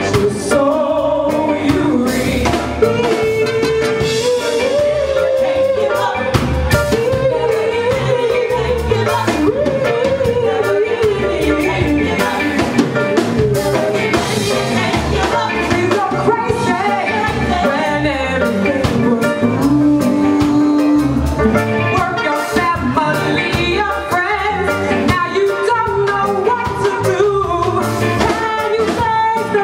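Live reggae band playing, with a lead singer's voice over drum kit and backing instruments.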